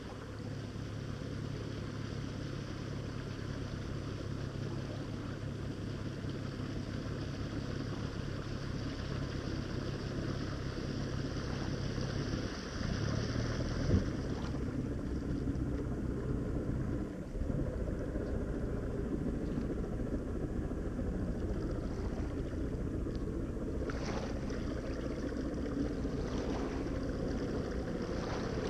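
Glastron 1700 runabout's engine droning steadily as the boat approaches across the water, with a single knock about halfway through; the drone drops away a little later as the boat throttles back off plane, leaving a wash of water and wind.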